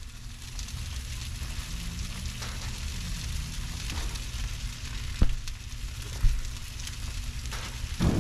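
Chicken quarters sizzling on non-stick grill mats on a gas grill: a steady hiss, broken by a few sharp knocks in the second half.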